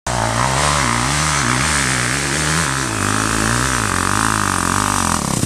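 Four-stroke dirt bike engine revving up and down over and over, about twice a second, as the rider works the throttle on a climb. The sound cuts off suddenly at the end.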